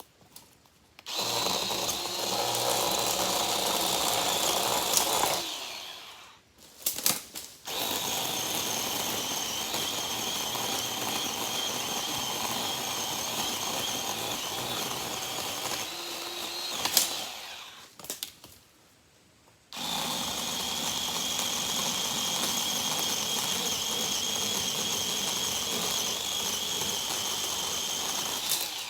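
A power cutting tool running steadily at a constant pitch, in three long runs separated by two short stops.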